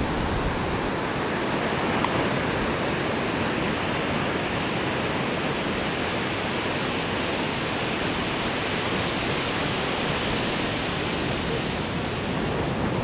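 Ocean surf on a beach: a steady, even wash of noise with no breaks or swells.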